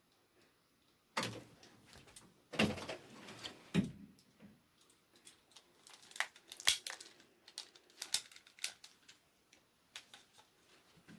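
Scattered light knocks and clicks of handling and movement: a few louder thumps in the first few seconds, then a string of short sharp ticks.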